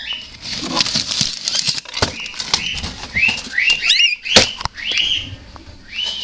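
Cockatiel giving a string of short chirps, a few of them rising and falling calls near the middle, over scattered clicks and scratching as it moves about among things in a cupboard.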